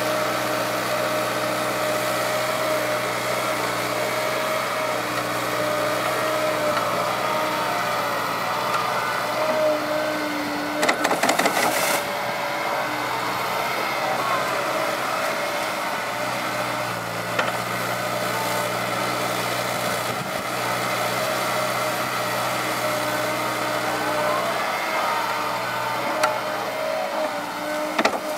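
Liebherr crawler excavator's diesel engine running steadily under working load, with a steady hydraulic whine whose pitch shifts as the boom and bucket move. A short burst of clanks and knocks comes about eleven seconds in.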